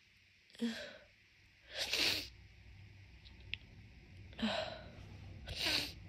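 A woman sneezing repeatedly from allergy congestion, four sudden bursts about one to two seconds apart.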